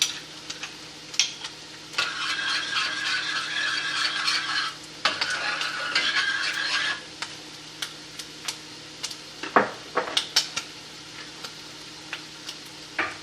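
Utensil scraping and stirring in a saucepan of barbecue sauce for about five seconds, with a short break midway, then a few clinks of utensils on cookware.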